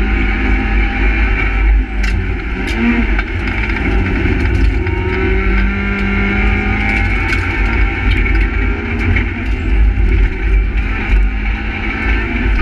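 Renault Twingo R1 rally car's engine running hard at speed, heard from inside the cabin, with heavy road and tyre rumble; the engine pitch shifts a couple of seconds in, and a few sharp clicks come through.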